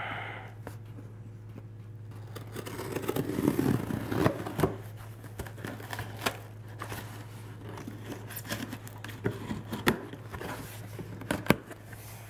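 Folding knife slicing through packing tape on a cardboard box, with the cardboard scraping and rustling as the flaps are worked open. Scattered sharp clicks and taps, over a steady low hum.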